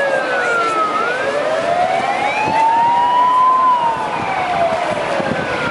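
An emergency siren wailing in a slow rise and fall, each sweep taking about two and a half seconds, over the steady rush of a fire boat's water jets.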